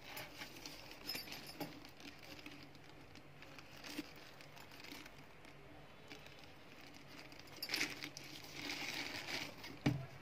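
Plastic bag rustling and dry rice grains pattering as a handful of rice is scooped and handled, busier near the end, with one sharp knock just before it ends.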